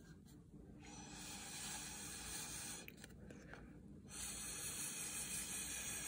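Air blown through a drinking straw onto wet acrylic pour paint, heard as two soft breathy hisses of about two seconds each: one starting about a second in, the other starting about four seconds in.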